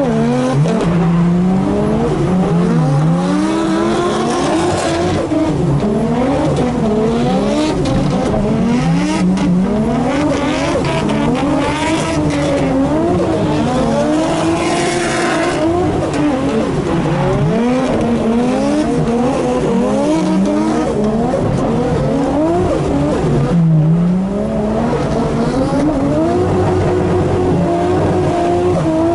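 Turbocharged RB25DET straight-six of an R33 Nissan Skyline, heard from inside the cabin, revving up and down over and over as the throttle is worked while drifting. About two-thirds of the way through it rises briefly, then drops back for a moment.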